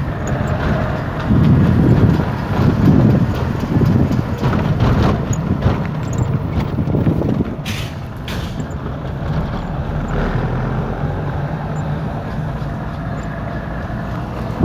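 Car driving slowly, heard from inside the cabin: a steady rumble of engine and road noise, heavier and uneven in the first half, with two short knocks about eight seconds in.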